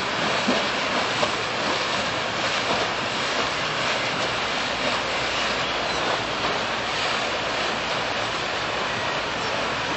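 Steady rushing noise of moving river water and wind on the microphone, with no clear engine tone.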